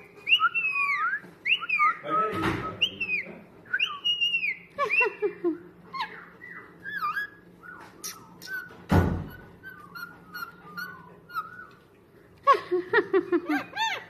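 Indian ringneck parakeet whistling in short gliding calls, then chattering in a run of quick little chirps. A thump about two and a half seconds in and another about nine seconds in.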